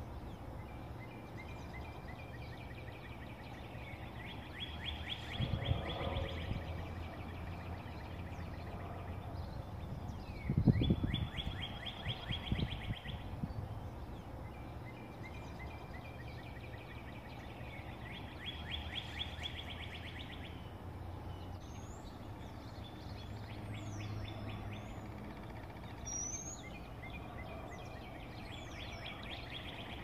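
A songbird singing a rapid trill of quick repeated notes, each song lasting a few seconds and coming again every several seconds, with other birds giving short high chirps later on over a steady low background hum. A brief muffled bump, the loudest sound, comes about eleven seconds in.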